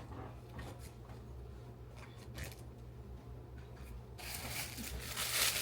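Plastic clothing packaging being handled: faint rustling and small clicks, then louder crinkling starting about four seconds in.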